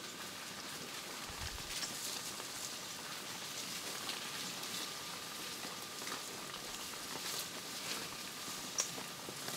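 Cape buffalo herd walking across a gravelly dirt road and through brush: a scatter of soft crackles and pattering hoofsteps over a steady hiss.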